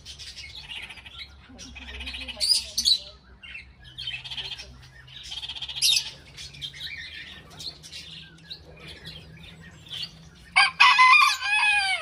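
Red-crowned parakeet (kākāriki) chattering: repeated runs of rapid, high chatter, ending in a loud string of several rising-and-falling calls near the end.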